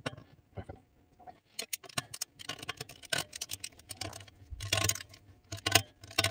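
Steel hand tools and a barrel vise handled on a steel workbench: a quick, uneven run of light metallic clicks and clinks, sparse at first and busier from about a second and a half in.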